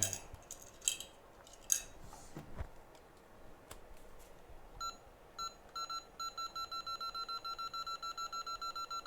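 Electronic beeping from workbench equipment: a few separate beeps, then a fast, even run of about four to five high beeps a second. Before the beeping there are a few soft handling clicks.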